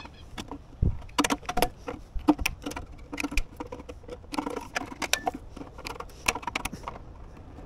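Tin snips cutting and trimming the end of a square metal downpipe: an irregular run of sharp metallic snips and clicks.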